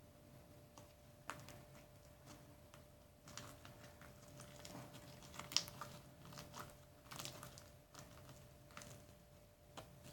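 Homemade slime with toothpaste kneaded into it, worked and stretched between the hands: faint sticky squelches and small pops, getting busier about three seconds in.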